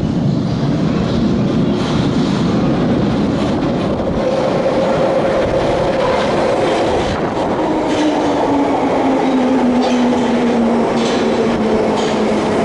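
London Underground Bakerloo line train, 1972 Stock, pulling into the platform: a loud, steady rumble of wheels on rail, with a whine that falls steadily in pitch from about halfway through as it slows.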